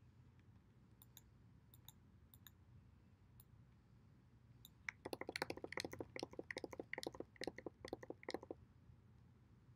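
Faint clicks of a computer mouse, scattered at first, then a quick run of many clicks from about five seconds in, lasting about three and a half seconds.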